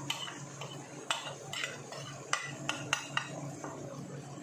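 Steel spoon clinking and scraping against a plate and the rim of a cooking pot as spices are tipped in: about eight sharp metallic clinks in the first three seconds or so, then quieter. A low steady hum runs underneath.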